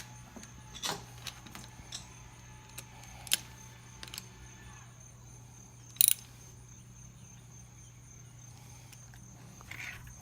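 Scattered metallic clicks and clinks from a spark plug socket ratchet as a spark plug is tightened down in a Kawasaki Ninja 250R cylinder head, with one sharper click about six seconds in, over a steady low hum.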